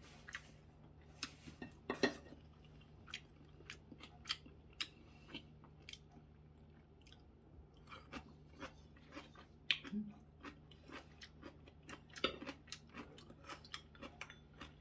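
A person chewing food close to the microphone: many short, irregular crunches and clicks, faint overall.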